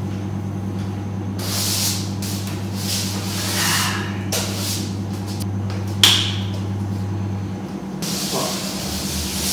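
Broom bristles swishing across the floor in several separate strokes, with a sharp knock about six seconds in, over a steady low hum.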